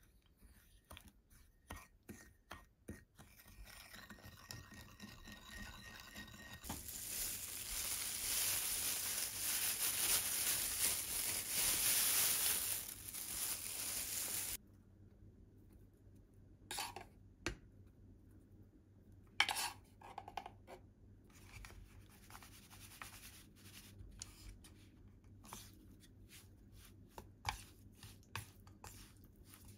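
A metal spoon clinks and scrapes against a glass bowl while stirring a soy sauce mixture. Then a loud, steady rushing noise lasts about eight seconds and cuts off suddenly. After that come sharp taps and light scraping as wooden chopsticks toss raw chicken pieces in powder on a stainless-steel tray.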